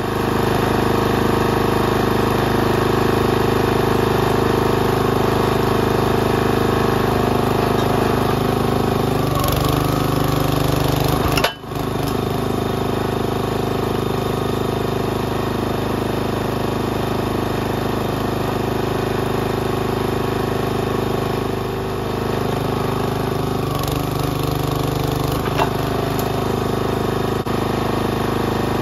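Log splitter's small engine running steadily while it powers the hydraulic ram used as a forging press. Its note shifts around ten seconds in and again in the second half, as the ram works under load.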